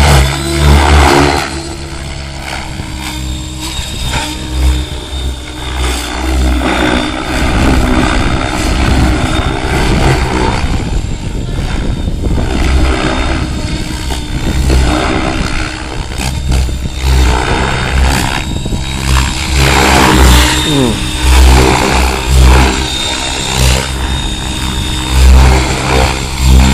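Align T-Rex 700 DFC electric RC helicopter flying aerobatics: rotor blades whooshing over the steady whine of the motor and gears. The sound swells loudly several times as the helicopter makes low passes close by, loudest about a second in and in the last ten seconds.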